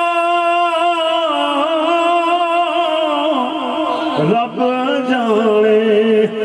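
A man's voice singing a long drawn-out note of a devotional verse, held steady at first and then wavering through ornaments before settling onto a lower held note about four seconds in.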